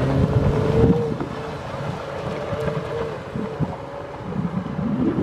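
Jeep Wrangler JK engine running under load on an off-road trail, with wind buffeting the microphone; the engine note is strongest in the first second and then settles to a steadier hum.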